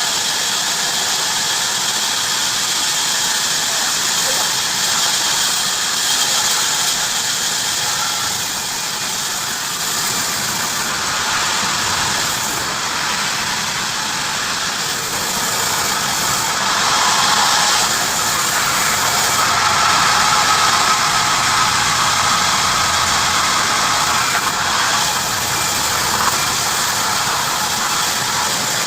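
Heavy-duty bandsaw running and cutting through wood: a loud, steady sawing noise, with a faint high whine rising out of it around two-thirds of the way in.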